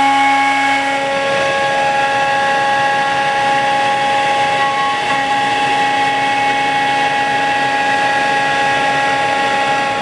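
CNC router spindle running and cutting a straight seam through a walnut bartop: a steady, loud whine of several tones over the noise of the cut, with no break.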